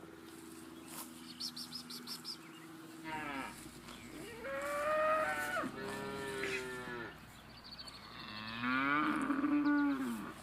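Holstein Friesian cattle mooing: about four moos from about three seconds in, the last a long one near the end.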